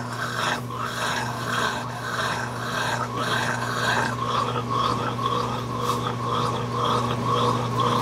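Brastemp BWK16 16 kg washing machine running: a steady motor hum under a rhythmic swishing of water and laundry, which settles into about two strokes a second in the second half.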